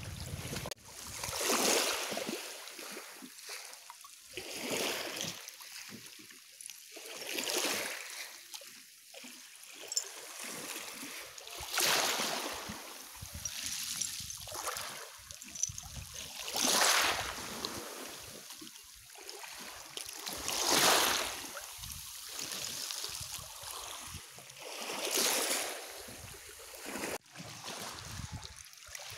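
Small waves washing in over a shore of coral rubble and stones, each wash swelling and falling away about every four seconds.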